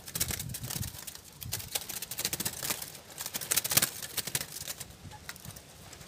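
Quick irregular clicking, rattling and scuffling from a bamboo bird cage as a hand reaches inside to catch a zebra dove, with the bird moving about against the bars; busiest about halfway through.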